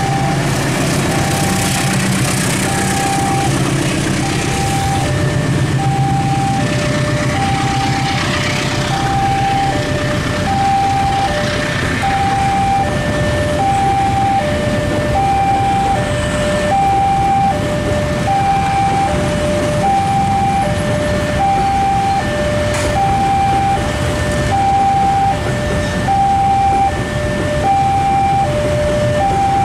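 Railway level-crossing warning alarm sounding a repeating two-tone signal, a higher note then a lower one, each held about half a second, over the low rumble of a freight train passing close by: the diesel locomotive at first, then a long string of container wagons.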